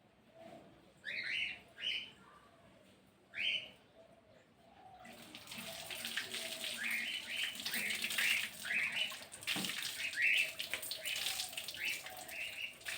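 Birds chirping in short, separate calls. About five seconds in, running, splashing water starts suddenly, as from a tap or washing, and goes on under the chirps.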